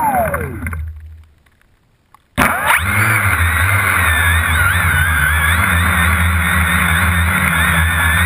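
Quadcopter drone's electric motors winding down with falling whines as it settles in the grass, about a second of near silence, then the motors spin up abruptly and run at a steady high whine whose pitch wavers as the drone climbs.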